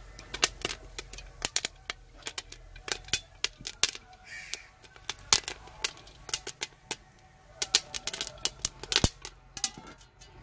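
Popcorn kernels popping in hot oil in a steel pan: a stream of irregular sharp pops, several a second.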